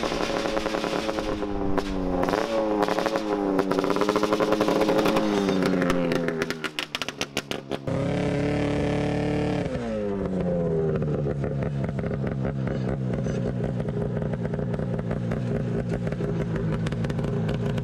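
Arctic Cat 440cc twin-cylinder two-stroke snowmobile engine in a homemade motorcycle, revving up and down under riding and going choppy for a moment. About eight seconds in it is held at high revs, then the revs fall away about ten seconds in and it settles to a steady idle. The builder says its carburetor needs a tune-up.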